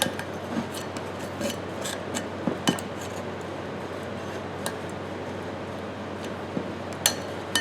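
Scattered light metallic clicks and clinks of a screwdriver working at the spring inside a Ridgid pipe wrench, over a steady low hum.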